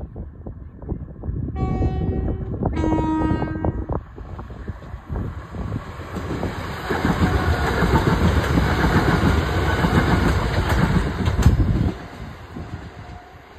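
Class 377 Electrostar electric multiple unit sounding its two-tone horn, a higher note then a lower one about two seconds in. The train then passes close by, its wheel and running noise swelling and dropping off sharply about twelve seconds in.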